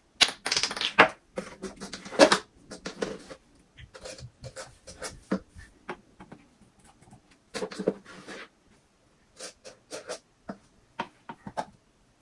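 Plastic clicks, taps and scraping as a baby bottle is opened and powdered infant formula is scooped from its tub with a plastic scoop. A dense stretch of scraping and clicking in the first few seconds, then scattered single clicks.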